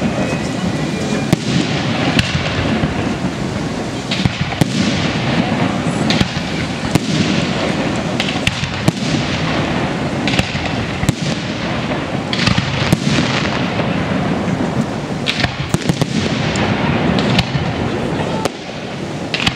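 Aerial fireworks display: a continuous barrage of shell bursts, with a sharp bang about every second over a steady bed of crackling.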